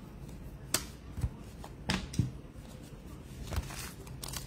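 Trading cards being flipped through by hand, one sliding off another, with a few sharp card snaps about a second and two seconds in. Near the end a pack wrapper starts to crinkle.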